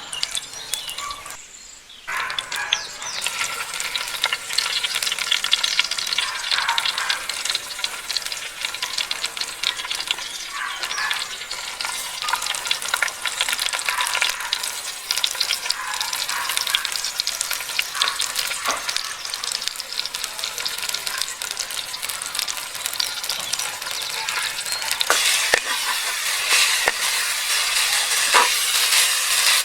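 Food frying in hot oil in a pan, a dense crackling sizzle that starts after a brief break about two seconds in, with occasional clicks from stirring.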